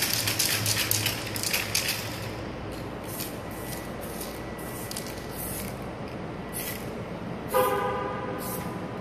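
An aerosol spray-paint can being shaken, its mixing ball rattling rapidly, then several separate short hisses of spray. A brief horn-like honk sounds once, about seven and a half seconds in.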